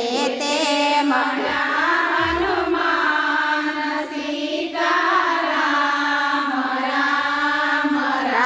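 Women singing a Gujarati devotional kirtan, long held notes that waver and slide in pitch.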